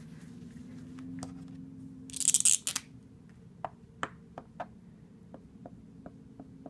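A hand rubs across a whiteboard with a brief hissing wipe about two seconds in. From about three and a half seconds in, a dry-erase marker writes on the board in a string of short, sharp strokes.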